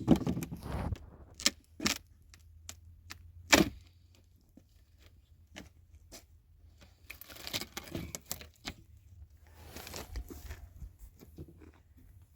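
Scattered knocks and clicks with stretches of rustling, as objects are handled; the loudest knocks come at the very start and about three and a half seconds in.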